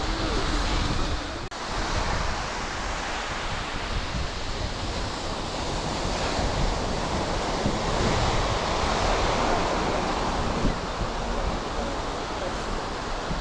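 Ocean surf breaking and washing on a sandy beach, a steady rushing noise, with wind buffeting the microphone.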